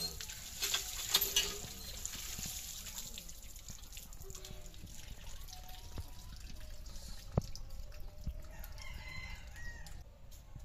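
Water splashing from a hand pump's spout into a plastic basket for the first couple of seconds, then a rooster crowing in the background. A single sharp tap stands out about halfway through.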